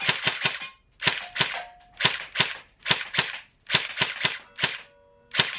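Heckler & Koch 416C airsoft electric rifle firing BBs in about seven short bursts of several rapid shots each, with brief pauses between, feeding properly from an Ares 140-round mid-cap magazine.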